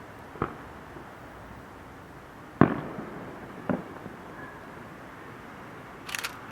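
Aerial firework shells bursting: three sharp bangs about half a second, two and a half seconds and three and a half seconds in, the middle one the loudest with a trailing echo, then a short high crackle near the end.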